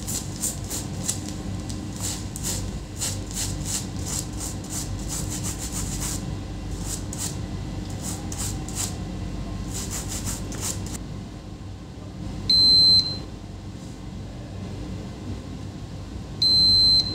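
A brush scrubbing a wet M.2 SSD circuit board in quick repeated strokes, stopping about eleven seconds in. Then two short, loud electronic beeps, a few seconds apart.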